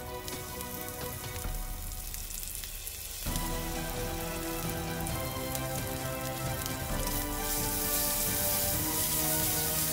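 Hot oil sizzling in a wok as curry paste is squeezed in and stirred through fried shallots, garlic and lemongrass. The sizzle gets louder about three seconds in and again near the end, over background music.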